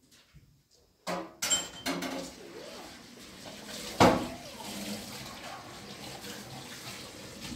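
Kitchen tap running into a steel sink as dishes are washed, with clinks of dishware and one sharp clack about four seconds in. The water starts about a second in.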